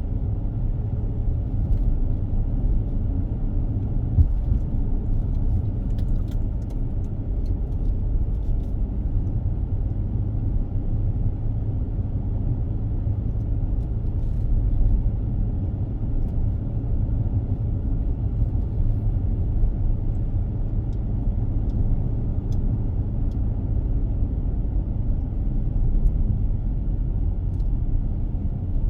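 Steady low rumble of a car driving along a road, its tyre and engine noise. A few faint clicks come through now and then.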